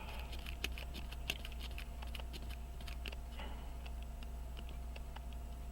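Light, irregular clicks of small metal tools touching a pocket-watch movement during disassembly, over a steady low hum.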